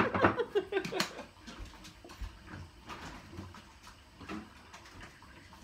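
A short pitched vocal sound in the first second, then a sharp click about a second in, followed by faint scattered knocks and handling noises.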